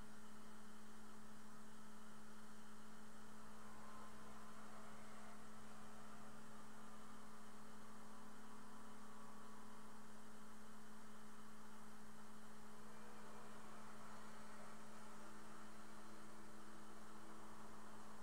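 ATOM delta 3D printer humming steadily at a low pitch, with fainter higher tones coming and going about four seconds in and again from about thirteen to seventeen seconds.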